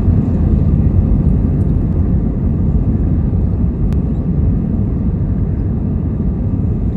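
Loud, steady low rumble of an Airbus A319's jet engines and airflow heard inside the cabin during the takeoff run, easing slightly after a couple of seconds.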